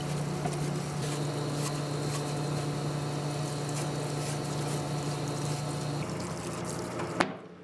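Parts washer's pump humming steadily while solvent streams and trickles over a sand-blasted aluminium oil filter housing, flushing out leftover blasting sand. A sharp click comes near the end, after which the sound drops.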